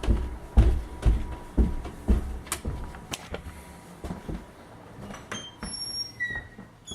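Footsteps thudding about twice a second, fading after the first two or three seconds, then a few faint short high squeaks.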